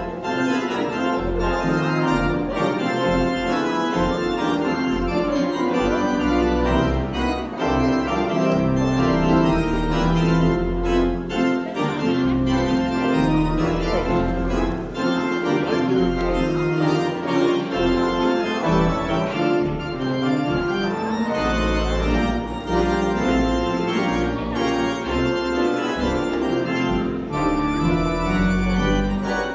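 Church organ playing a recessional: sustained full chords that change every second or so over deep bass notes, without a break.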